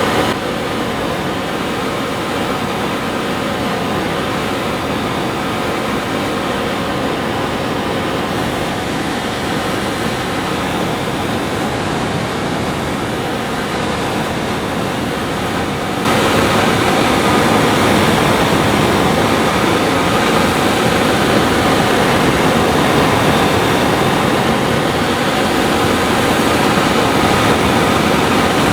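Handheld gas torch on a tank burning with a steady rushing hiss while it heats a copper gasket ring to anneal it. The flame gets noticeably louder about halfway through and holds there.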